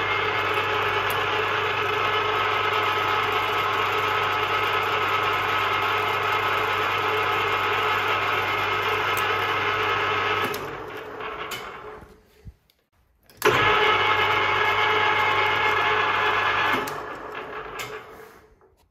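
Ferm FM760/300T metal lathe running, a steady motor hum with gear whine. About ten seconds in it is switched off and spins down. A few seconds later it starts again with a clunk, runs for about three seconds and spins down again.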